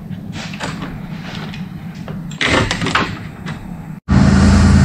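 Loose wires and connectors rustling and clicking as they are handled in the engine bay, with a louder scrape about halfway through. Near the end the sound cuts to the car running at idle, a steady low hum.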